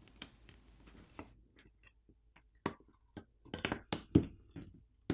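The glass backplate of a Samsung Galaxy S24 FE coming away from its frame under plastic pry picks, as the heat-softened adhesive lets go: a run of irregular sharp clicks and ticks. They are sparse at first and come thicker and louder from about three and a half to four and a half seconds in.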